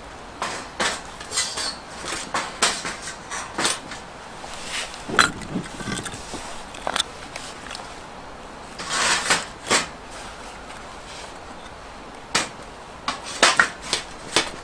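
Camp cookware and utensils being handled: a string of short clinks and knocks at uneven intervals, with a busier second of clattering about nine seconds in.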